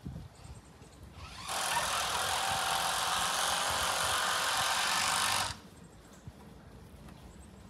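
Plastic dog house dragged across grass: a scraping hiss that starts suddenly about a second and a half in and cuts off about four seconds later.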